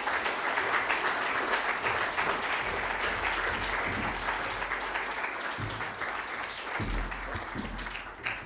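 Audience applauding in a lecture hall, a dense steady clapping that dies down near the end.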